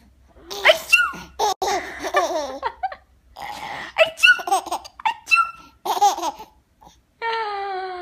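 Baby laughing at fake sneezes, in repeated bursts of high giggles with short pauses between, ending in a longer note that falls in pitch.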